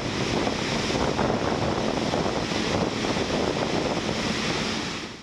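Flash floodwater rushing and churning through a concrete-lined drainage channel, a steady loud rush that fades out near the end.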